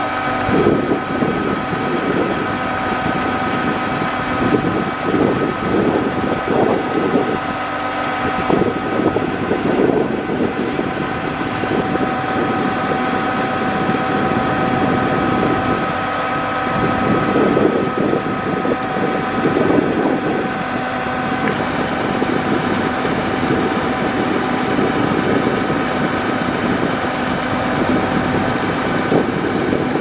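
Kubota DC-105X combine harvester's diesel engine running steadily while the unloading auger discharges rice grain. There is a steady whine over a dense, even mechanical rumble.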